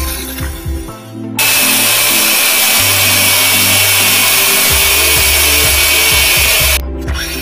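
Angle grinder cutting steel: quieter for the first second or so, it bites into the metal with a loud, harsh grinding about a second and a half in and holds it, then lifts off briefly near the end.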